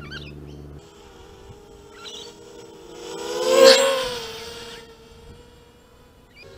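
Eachine 250 racing quadcopter's motors and propellers whining as it flies past, growing louder to a peak about three and a half seconds in, then fading away.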